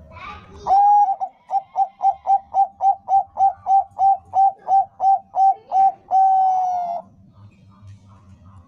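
Zebra dove (Bangkok-bred perkutut) singing. It gives an opening coo, then a fast run of short staccato coos at about four a second, then a long drawn-out coo that sinks slightly in pitch.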